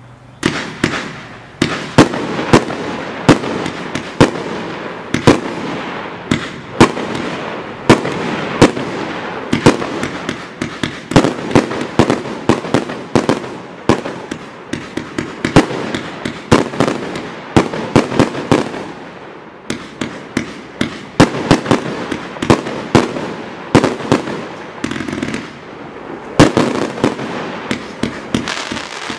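Hallmark Extravaganza 200-shot compound firework cake firing: starting about half a second in, a fast, uneven string of shots and bursting bangs over a constant hiss, with no let-up.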